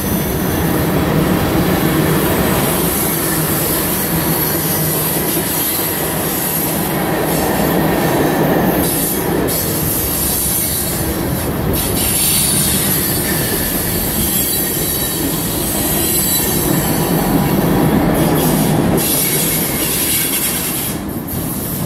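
Cars of a mixed CSX freight train (tank cars, covered hoppers and lumber-loaded flatcars) rolling past close by, a loud, steady noise of steel wheels on rail.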